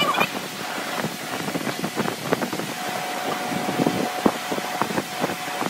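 Workshop background noise: a steady rushing hiss with many scattered clicks and knocks, and a steady whine that comes in about three seconds in.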